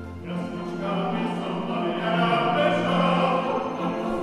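Mixed choir coming in just after the start and singing a Slovak Christmas carol, accompanied by a string quartet with a held low cello line.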